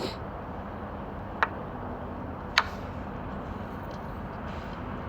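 Two short, sharp clicks over a steady low background noise, the first about a second and a half in and the second about a second later.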